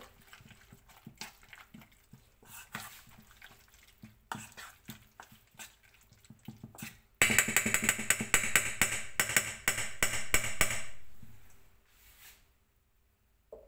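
Pancake batter being worked in a bowl with a kitchen utensil: soft, scattered scrapes and taps at first, then about four seconds of fast, steady clinking strokes as the batter is stirred, tapering off.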